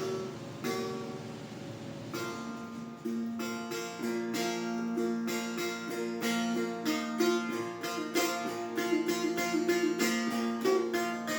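Setar, the Persian long-necked lute, played solo in an improvisation in dastgah-e Shur: plucked melody notes over a steady ringing lower note. The picking grows quicker and louder from about halfway through.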